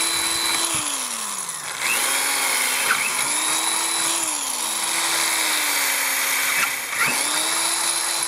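Corded electric drill boring holes through a steel knife tang (O1 tool steel). The motor is run in spurts: it spins up, holds a steady whine, then winds down when the trigger is released, several times over.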